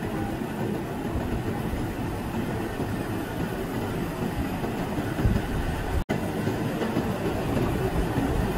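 Steady low rumbling din of a factory floor, a continuous machinery-like noise without any clear tone or rhythm. It cuts out for an instant about six seconds in, then carries on as before.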